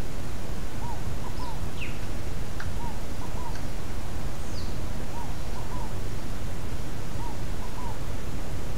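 A bird repeating a short low three-note call, one note then a quick pair, about every two seconds, with a few higher, falling bird calls between, over a steady rushing background noise.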